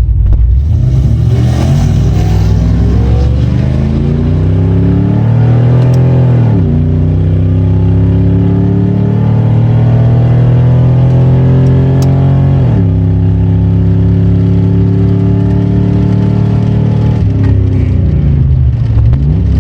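Drag-racing vehicle's engine at full throttle down the strip. Its revs climb steadily, drop sharply at gear changes about six and twelve seconds in, climb again, and fall away near the end as it lifts off.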